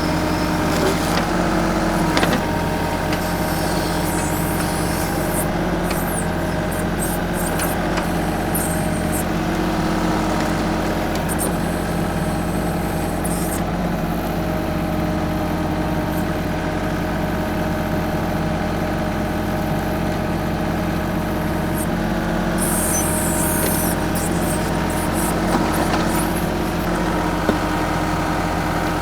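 TYM 2515H compact tractor's diesel engine running steadily while it works its BH150 backhoe, with a few short knocks and hissing bursts over the engine.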